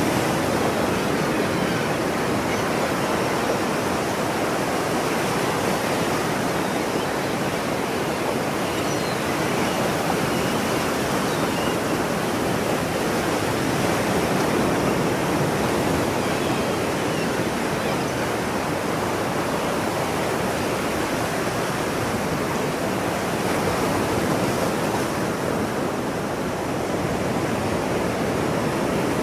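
Ocean surf: a continuous rushing wash of waves breaking on a shore, swelling and easing only slightly.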